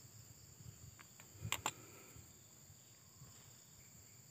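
Steady high-pitched insect chorus in the background, with two short sharp clicks about a second and a half in as tools and engine parts are handled.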